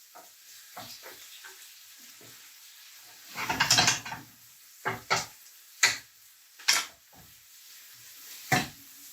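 Onion and red pepper sizzling faintly in a frying pan, with a louder scraping stir about three seconds in, then a handful of sharp knocks of kitchenware.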